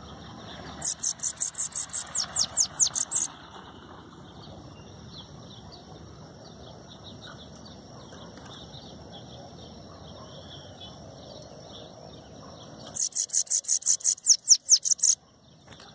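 Bananaquit (sibite, Coereba flaveola) singing: two bursts of its rapid, high-pitched song, each a quick run of about a dozen down-slurred notes lasting two to three seconds, one about a second in and one near the end.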